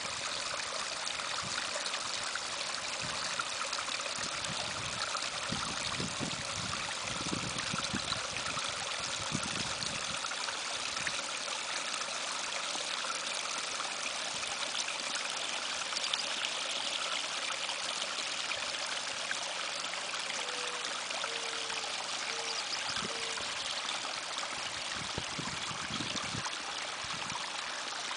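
Water running steadily over stones in a rock-lined garden stream, a continuous trickling and splashing.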